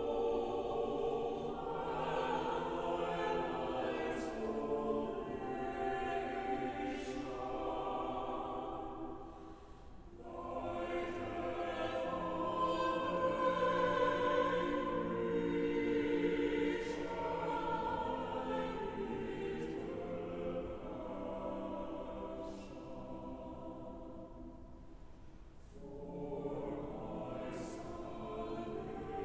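A choir singing in long, slow held phrases, with a pause about ten seconds in and another shortly before the end.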